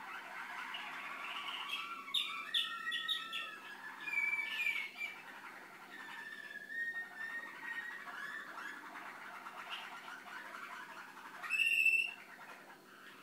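Malinois (Waterslager) canary singing an unbroken song of rolls, trills and gliding notes, with one louder, sharper note near the end.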